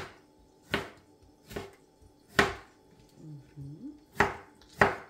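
Kitchen knife chopping a tomato on a cutting board while dicing it into small cubes: six sharp knocks at an uneven pace of about one a second.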